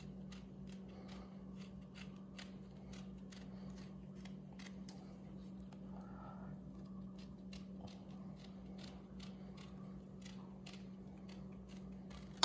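Kitchen knife paring thin strips of lemon peel: a quiet run of small, irregular clicks and scrapes as the blade cuts through the rind, over a steady low hum.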